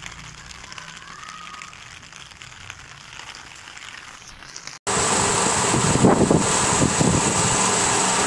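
Rain falling on a wet concrete rooftop, a faint patter at first. About halfway through the sound cuts off abruptly and comes back much louder as a steady rain hiss.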